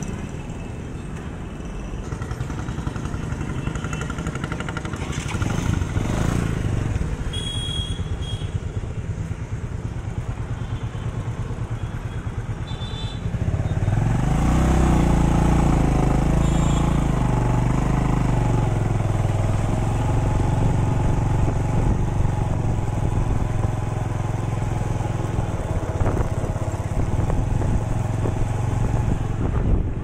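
Highway traffic on an Indian road: a steady wash of passing vehicles and tyre noise, with a few short horn toots. About halfway through, a heavy vehicle's engine comes close and grows loud, its low engine note running on to the end.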